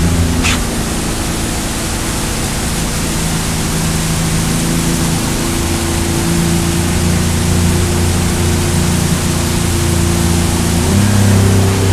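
Boat's outboard motor running steadily at planing speed, about 4,000 rpm, under a loud rush of wind and water. The engine note shifts slightly near the end.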